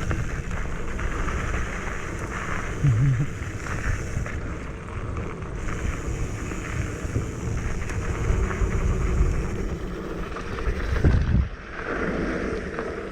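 Wind buffeting a helmet or body-mounted camera's microphone while riding a mountain bike downhill, mixed with the rumble of tyres and a rattling bike on a dirt trail, with a few louder knocks.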